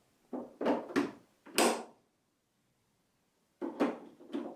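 Short knocks and rattles of plastic vacuum-cleaner parts being handled, in two groups of three: three in the first two seconds, three more near the end.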